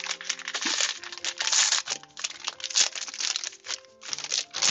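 Packaging crinkling and rustling in repeated bursts as a wrapped item is unwrapped by hand, over soft background music of sustained notes.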